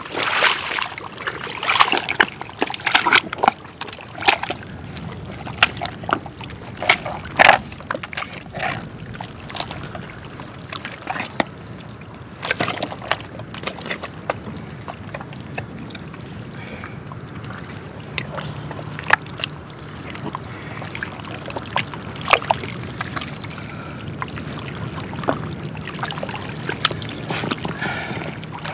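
A person's body sliding and pushing through wet tidal mud and shallow water: irregular squelching slaps and splashes, thickest in the first half and sparser later, over trickling water.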